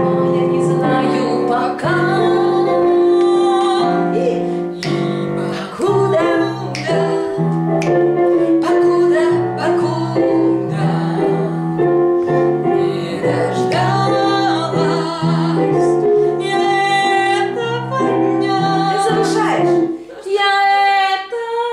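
A woman singing a pop ballad with vibrato over a piano or keyboard accompaniment. The accompaniment stops about twenty seconds in, and a short vocal phrase follows near the end.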